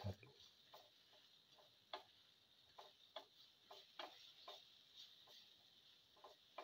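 Cumin and fennel seeds stirred with a spatula in a hot pan: faint, irregular light clicks, about two a second.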